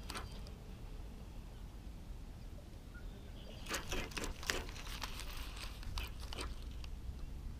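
Clicks and rustles from a baitcasting rod and reel being handled: one at the start, a cluster about four seconds in and a few more near six seconds, over a low steady rumble on the microphone.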